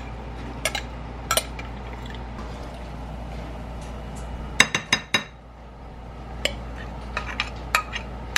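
Kitchen utensils and dishes clinking in scattered light knocks, with a quick run of louder clinks about halfway through.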